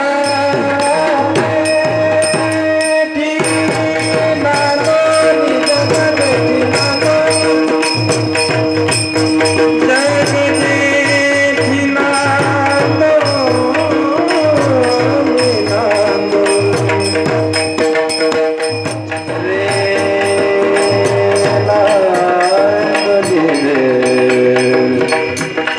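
Marathi devotional kirtan music: a held, gliding melody line over hand-played pakhawaj drumming and the rapid, steady clash of small hand cymbals (taal).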